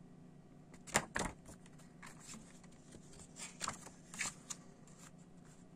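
Pages of a CD booklet being turned by hand: paper rustling and snapping, loudest about a second in, with several more rustles through the middle.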